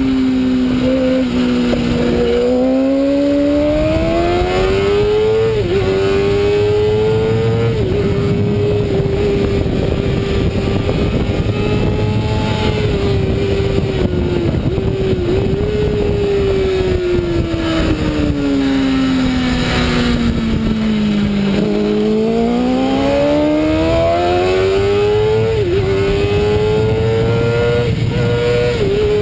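Onboard sound of a racing motorcycle's engine under hard acceleration, its note climbing with a quick dip at each upshift, then holding steady at high revs for several seconds. It falls away smoothly as the bike slows, then climbs again with two more upshifts near the end, over steady wind noise.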